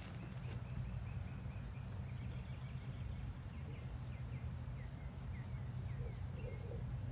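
Outdoor ambience: a steady low rumble, with a faint run of short high chirps repeating from about half a second in until near the end.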